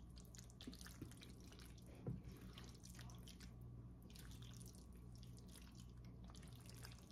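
Near silence, with faint scattered wet clicks from the pasta and sauce in the pan and one soft knock about two seconds in.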